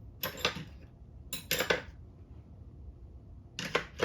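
Metal hand tools clinking and clattering against one another in three short groups of sharp knocks: just after the start, around one and a half seconds in, and near the end.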